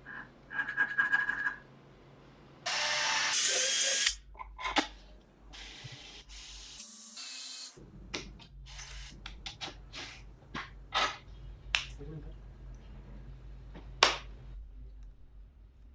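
Short workshop sounds of tools on metal: rasping scrapes, a brief loud burst of a cordless drill, and a run of sharp clicks and taps.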